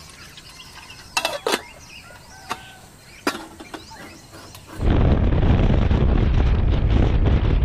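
A few sharp clicks and clinks of a metal kettle being handled on a gas camp stove, with faint bird calls. About five seconds in, the Yamaha XMAX 300 scooter's engine and wind noise take over, loud and steady as it rides.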